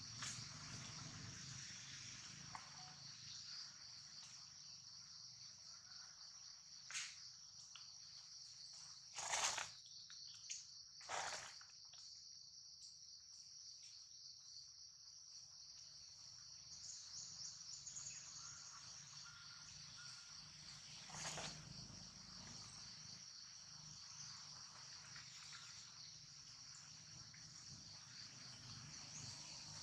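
Steady high-pitched chirring of insects in the background, with a few short, louder noises near the middle.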